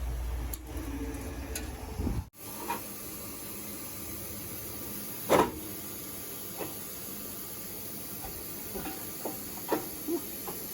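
A low rumble stops abruptly about two seconds in. A steady hiss follows, with a handful of scattered short knocks and clicks, the loudest about halfway through.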